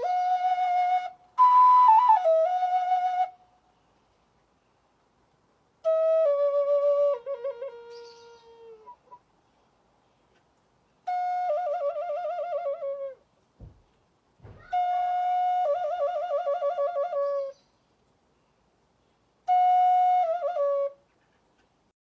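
End-blown wooden flute playing a slow melody in six short phrases separated by pauses. The phrases are made of held notes that step down in pitch, some with warbling trills.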